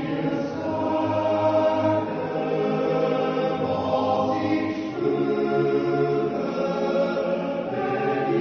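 Swiss men's yodel choir singing a Jodellied a cappella, holding sustained chords that move to a new chord about four seconds in.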